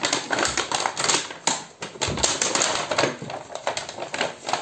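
Blue PVC heat-shrink sleeve crinkling and rustling in a run of irregular crackles as a cardboard-wrapped battery pack is worked into it by hand.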